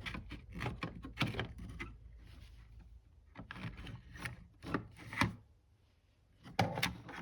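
Handling noise from a small radio being worked on: a string of irregular clicks and light knocks with some rubbing between them, going quiet briefly about six seconds in.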